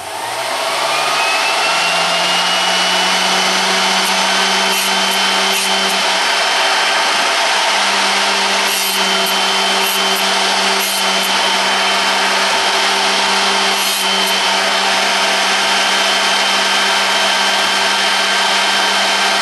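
Bench-top SRD drill pointer's electric motor switching on and spinning up to a steady hum and whine, with a drill bit being ground on its wheel and a few brief sharper scrapes.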